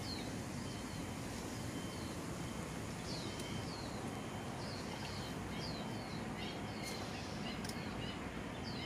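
A small bird repeating short, high, falling chirps, roughly twice a second, over a steady outdoor hiss.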